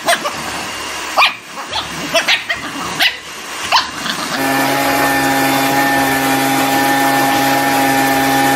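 A small dog gives several short yips and grunts over the first half. From about halfway a steady, unchanging droning tone takes over and holds to the end.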